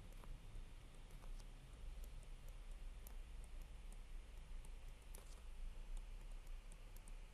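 Faint, irregular clicks and taps of a stylus on a drawing tablet as a formula is handwritten, over a low steady hum.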